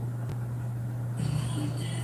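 Radio receiver with a steady low hum under dead air at the close of an EAS alert. A little over a second in, the station's broadcast audio cuts back in.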